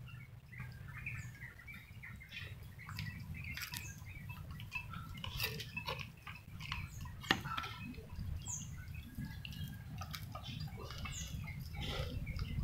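Cats and kittens eating from food bowls: many small wet chewing and lapping sounds with light clicks of bowls on a hard floor, one sharper click about seven seconds in, over a steady low hum.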